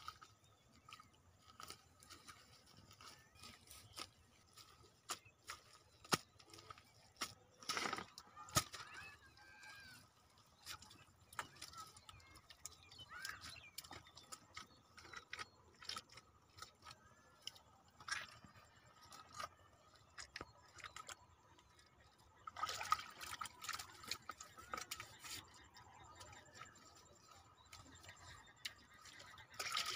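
Faint handling noises: scattered small knocks and wet scraping as hands work mud around the irrigation pump's pipe, with a louder stretch of rustling and splashing about three quarters of the way through.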